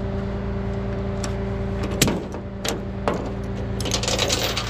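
Rollback tow truck's engine and bed hydraulics running, a steady hum, while a car is moved on the tilted bed. A sharp metal clank comes about two seconds in and another about a second later, then metallic rattling near the end.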